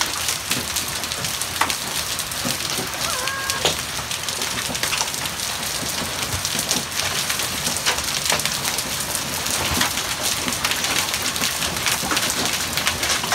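Hailstorm: hail and rain pelting down steadily, a dense hiss dotted with many sharp ticks and clatters of individual hailstones striking.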